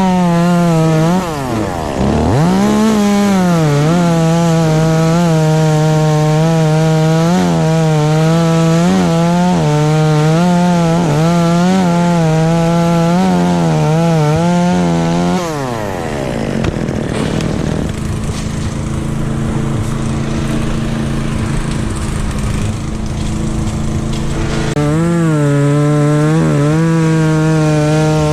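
Chainsaw running at full throttle, cutting wood, its pitch wavering under load. About fifteen seconds in the throttle is released and it drops to idle, then it revs back up near the end.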